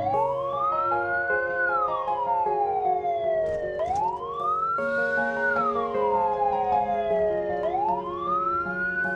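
Ambulance siren in slow wail mode, its pitch climbing for about a second and a half and then falling for about two seconds, repeating about every four seconds. Background music plays underneath.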